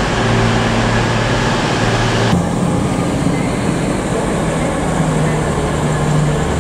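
EMR Class 222 Meridian diesel multiple unit moving slowly through the station, its underfloor diesel engines running with a steady low drone. About two seconds in, the background changes abruptly to this train.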